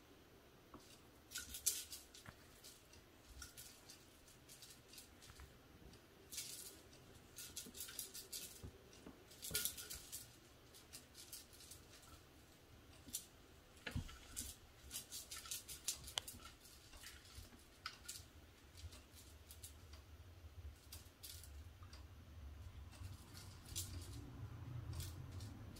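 A kitten batting and clawing at a feather toy on a wire spring fixed to a carpeted scratching pad: irregular clusters of scratching, clicking and rattling.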